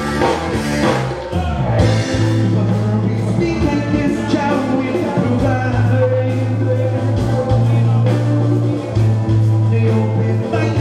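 A live band plays a song: a man sings over a loud bass line and a steady beat of about two strokes a second.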